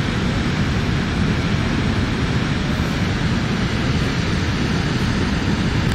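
Steady rushing outdoor noise with a heavy low rumble, unbroken and even throughout.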